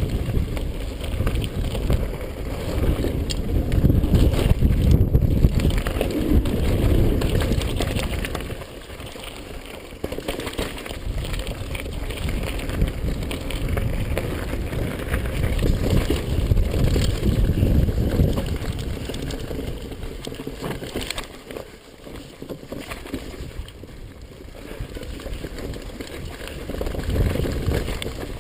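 Mountain bike riding down a dirt trail: a heavy rumble of wind on the camera microphone mixed with the noise of the tyres and bike over the ground. It swells and fades with speed, with quieter stretches about nine seconds in and again past twenty seconds.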